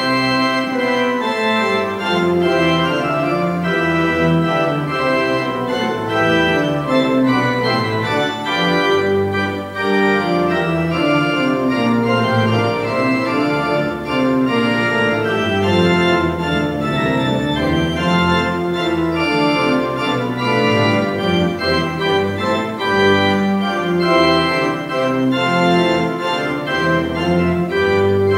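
Church pipe organ playing a continuous piece: sustained chords over a bass line that climbs and falls.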